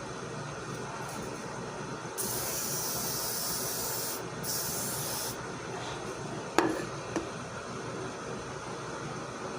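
Aerosol hair spray, Got2b, sprayed in two bursts: one of about two seconds, then a shorter one. A sharp click and a smaller one follow.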